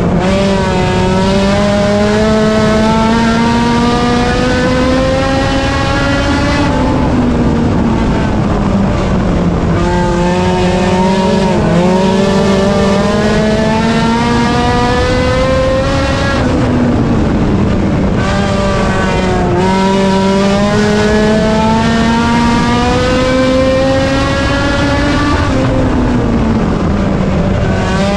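Honda four-cylinder race car engine at race pace. Its pitch climbs steadily for about six seconds, then drops off as the driver lifts, and the cycle repeats three times.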